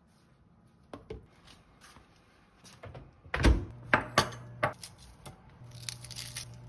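White ceramic plates set down on a stone countertop, making a few sharp clinks and knocks, followed by the crisp rustle of lettuce leaves being torn. A low steady hum starts near the end.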